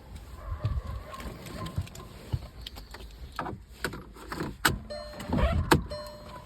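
Irregular knocks and clicks over a low engine rumble, with a faint steady whine. Short, repeated musical tones come in about five seconds in.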